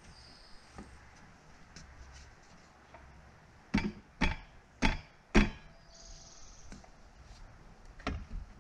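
Four sharp hammer blows on T1-11 wood siding, about half a second apart, a little before the middle, then a lighter knock near the end.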